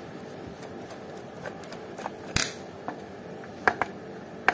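Scattered light clicks and taps of a screwdriver working the screws of a small metal SWR meter case while the case is handled, with one sharper click a little past two seconds in.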